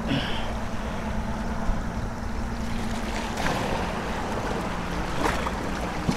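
Small waves washing and splashing against granite jetty rocks, over a steady low rumble of wind on the microphone, with a few faint clicks.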